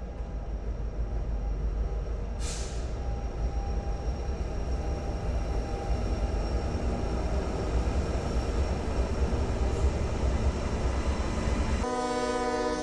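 Diesel-hauled freight train passing: locomotive engines running over a steady rumble of wheels on rail, with a short hiss about two and a half seconds in. Near the end the sound changes abruptly to a locomotive horn sounding a chord.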